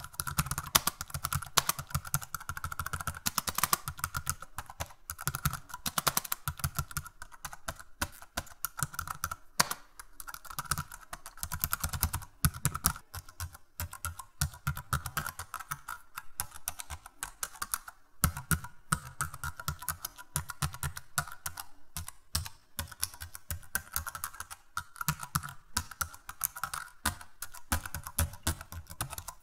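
Computer keyboard typing: rapid, irregular key clicks and clatter, several a second, going on without a pause.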